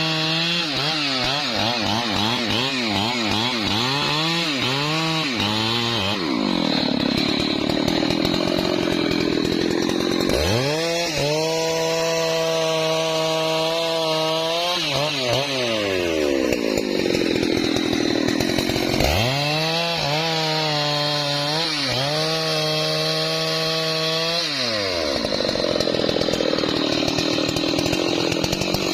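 Husqvarna 3120 XP chainsaw's large two-stroke engine running at high revs, with its pitch sagging three times into a rough cutting noise as the chain bites into trembesi wood, then climbing back up between cuts.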